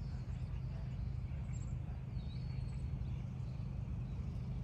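Quiet outdoor ambience: a steady low rumble with a few faint bird chirps now and then.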